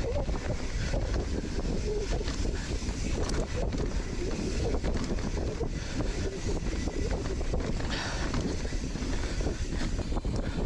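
Heavy wind buffeting on a camera microphone during a fast ride: a steady, dense low rumble with scattered small knocks from the bike and trail.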